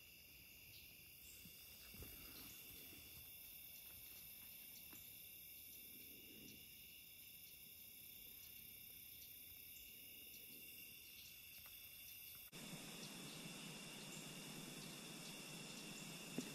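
Faint, steady chorus of crickets and other insects chirping. About twelve seconds in it cuts abruptly to a louder, even hiss, with the insect sound going on over it.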